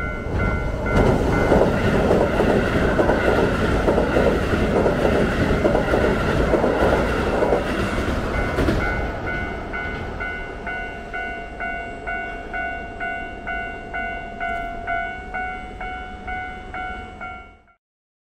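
Japanese level-crossing warning bell ringing in a steady repeating ding about twice a second, while a Keihan train rumbles across the steel truss bridge for the first several seconds. The train noise fades and the bell rings on alone until the sound cuts off near the end.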